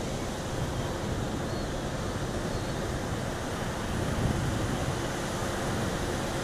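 Surf breaking on the beach, a steady rushing noise, with wind buffeting the microphone.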